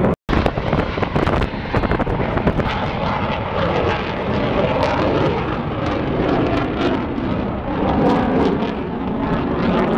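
Military jet flying high overhead: a steady rumble of jet engine noise with crackle. The sound cuts out for a moment just after the start, at an edit in the recording.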